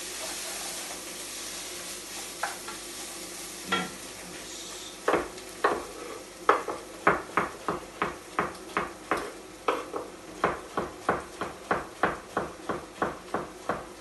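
Vegetables sizzling in a pot as they are stirred, then a chef's knife chopping courgette on a wooden chopping board: quick, evenly spaced strokes, about two or three a second, starting about five seconds in.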